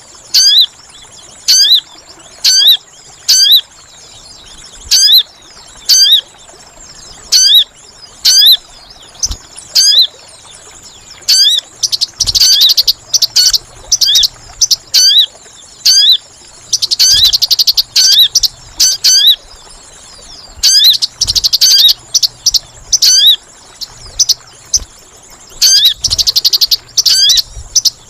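Sogon bird calls played as a lure recording: short rising chirps repeated about once a second, broken four times by dense, rapid chattering bursts.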